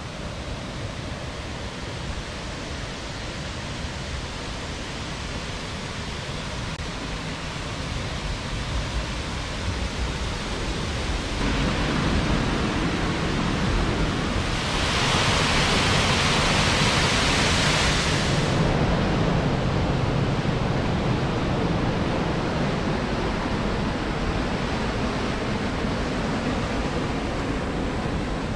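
River water rushing over rocks and a weir, a steady hiss that gets louder about eleven seconds in, with a brighter, louder stretch of about three seconds past the middle.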